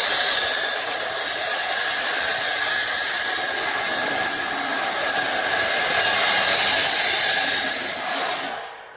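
A steady, loud, hissing machine noise with a faint steady whine in it, cutting off shortly before the end.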